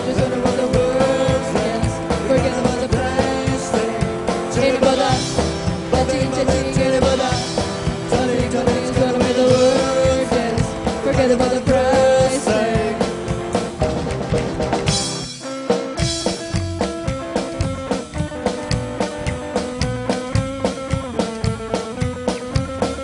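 Live band playing an upbeat song: a woman's singing over upright bass, drum kit and electric guitar. About two-thirds of the way in, the singing and the full band drop out suddenly, leaving a sparser, choppier groove of bass, guitar and drums.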